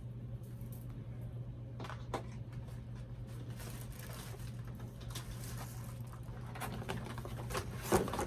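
Doll accessories and plastic packaging being handled: scattered light clicks and taps, with a sharper click near the end, over a steady low hum.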